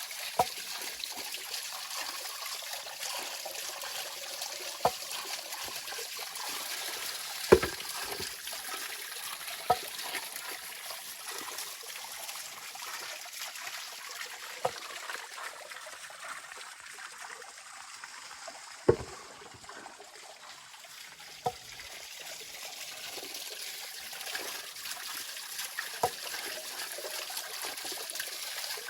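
Stream water flowing and trickling steadily, with sharp knocks or clicks every few seconds, the loudest about seven and nineteen seconds in.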